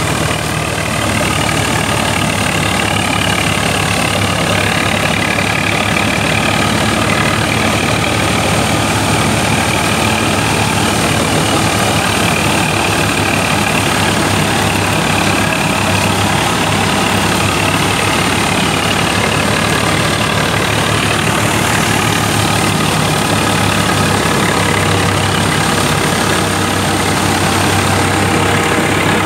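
Tractor engine running under load while driving a straw reaper through its shaft, the reaper's cutter, drum and straw blower working with it: a steady, loud mechanical drone with a steady whine over it.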